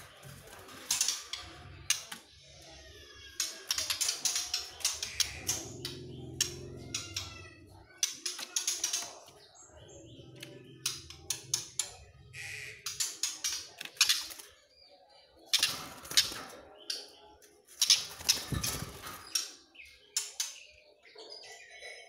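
Young white-rumped shamas calling in their cages: many short, sharp chirps scattered throughout, with a quick run of whistled notes about three seconds in.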